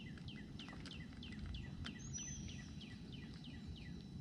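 A bird calling in the background, a quick series of short down-slurred chirps, about three or four a second, over faint outdoor ambience, with one brief high whistle about two seconds in.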